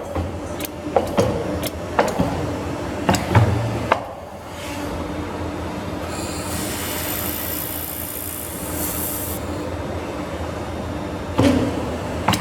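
Automatic ring bending and laser welding machine running its cycle: sharp knocks of its hydraulic cylinders for the first few seconds, then a steady machine hum with a hiss in the middle, and the knocks start again near the end.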